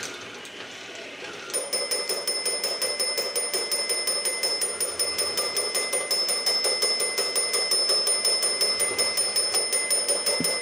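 The small bell on a 3D-printed robotic fireman toy starts ringing about a second and a half in. It goes as a rapid, even train of strikes with a steady high ring, the toy's bell stage while its ladder raises.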